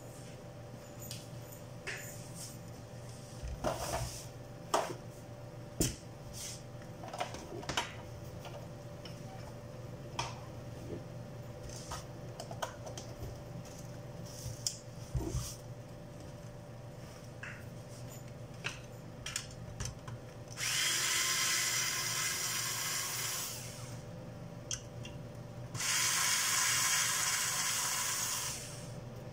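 Solder rework station handpiece running in two bursts of about three seconds each, a steady hiss of air, while a part is being removed from a switch-mode power-supply board. Before it come scattered light clicks and taps of tools being handled.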